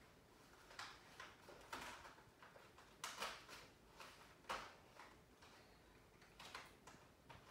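Faint, scattered small clicks and scrapes as a cardboard advent calendar is picked at by hand, its little doors being prised open.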